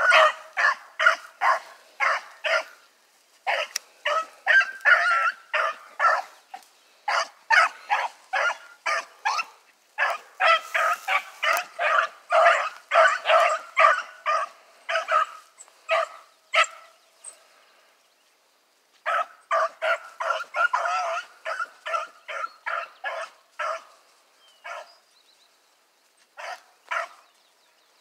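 Hunting dogs barking in a fast, steady run of short barks, about three a second, sometimes overlapping. The barking breaks off briefly past the middle, resumes, then thins to a few scattered barks near the end.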